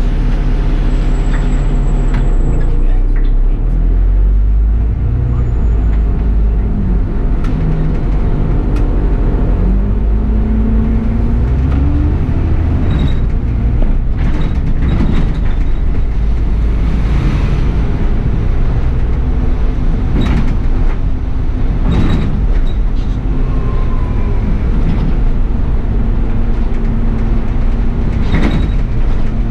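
Bus engine running and the bus rattling along, heard from the driver's cab, with scattered clicks and knocks. About ten seconds in, the engine note rises as it pulls harder.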